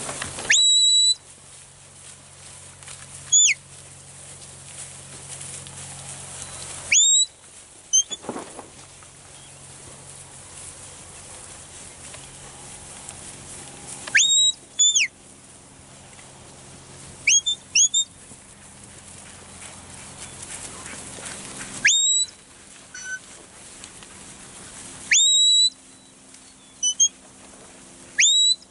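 Herding whistle commands to a working dog. Short, high, clean whistled notes come in clusters every few seconds; some slide up and hold, others are quick falling blasts.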